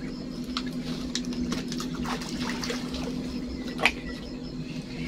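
Small water splashes and drips at the lake shore, irregular and light, with one sharp click about four seconds in, over a steady low hum.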